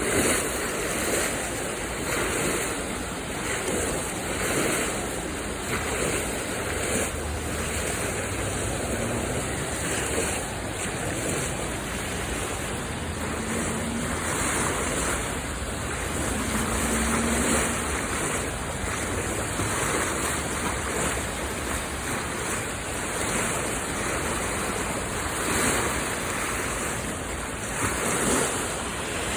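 Rushing floodwater: a steady wash of water noise that swells and eases every second or two.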